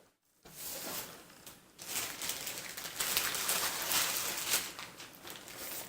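Paper and packaging rustling and crinkling as old envelopes and documents are handled and moved about, with a short pause near the start.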